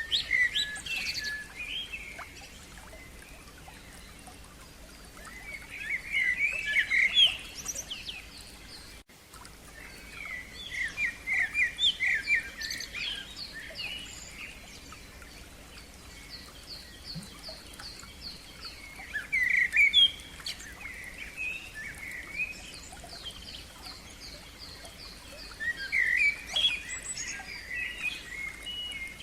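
Wild songbirds singing in repeated phrases of two to three seconds, about five in all, while a second bird keeps up a thin, evenly spaced series of high notes. Underneath is a faint steady rush of a stream.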